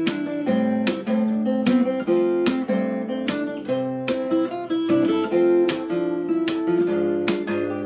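Solo acoustic guitar with a capo played fingerstyle: a melody over plucked chords, with strummed strokes mixed in, the attacks coming about twice a second. Recorded on a smartphone's built-in microphone, with no separate mic or line input.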